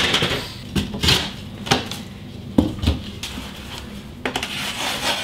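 Plasterboard being handled and cut to size: a series of sharp knocks and clacks as a metal spirit level and the board are moved and set down, with short scraping sounds of a blade working along the board's edge near the end.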